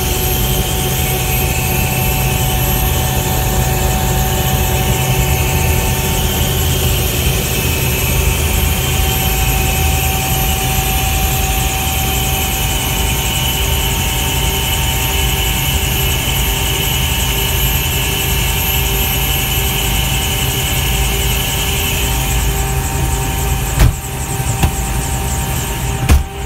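Airbus H120 helicopter's Turbomeca Arrius 2F turboshaft running steadily after start-up, a whine of several steady tones over a low drone from the turning rotor. A high part of the whine fades about three-quarters of the way through, and two or three sharp clicks come near the end.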